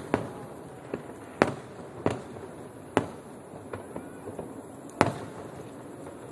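Fireworks display bursting: about five loud, sharp bangs roughly half a second to a second apart, with fainter pops between, over a steady background hiss. The bangs stop about five seconds in.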